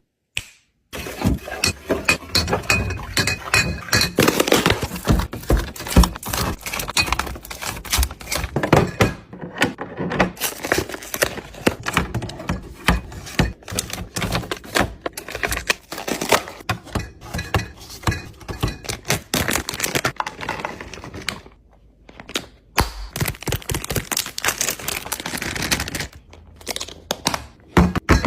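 Drink bottles, cans and storage containers being set down and shuffled on refrigerator shelves: a dense run of quick knocks, clunks and clinks, with a brief pause near the start and another about three-quarters of the way through.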